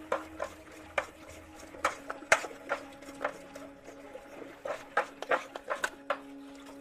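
Irregular sharp clicks and taps of parts and tools being handled, over a faint steady hum.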